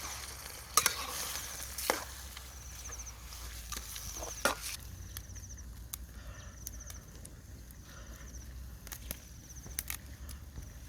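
Food sizzling in a pan, with a few sharp knocks of a utensil against it; the sizzle dies down about halfway through. A short high chirp repeats in the background every second or so.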